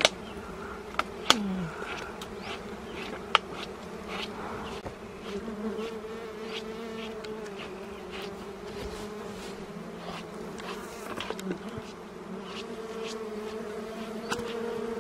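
Wild honey bees buzzing steadily around a freshly cut honeycomb, with a few sharp clicks.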